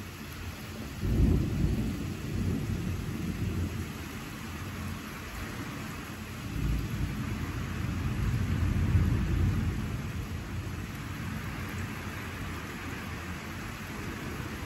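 Steady rain hissing, with rolling thunder: a sudden low rumble about a second in, then a longer one that swells from about six seconds and dies away after ten.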